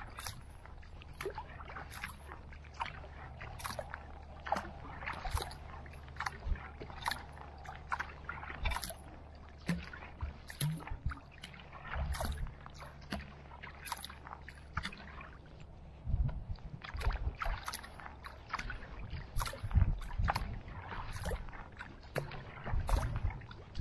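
Kayak paddle strokes: the blades dipping into the water with a short splash and drip roughly every three-quarters of a second, in a steady rhythm. Under them a low rumble, likely wind on the microphone, grows louder about two-thirds of the way through.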